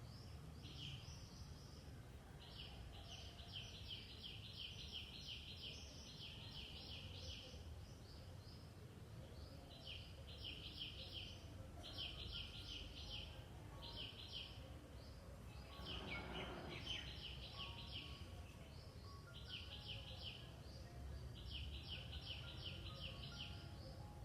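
Birds and squirrels chirping: rapid high calls repeated in bouts of one to three seconds, over a low steady rumble. A brief, louder, noisier sound comes about two-thirds of the way through.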